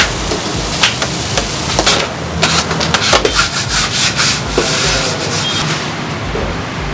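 Metal scraper and spatula scraping chopped fried food across a flat iron griddle, a steady gritty rasp with scattered clinks of metal on the plate.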